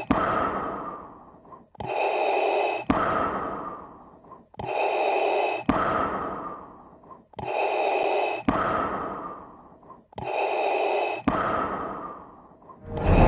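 Slow, heavy respirator-style breathing sound effect, a loud hissing breath cut off with a click and followed by a fading out-breath, repeating about every three seconds. Music with deep held notes comes in near the end.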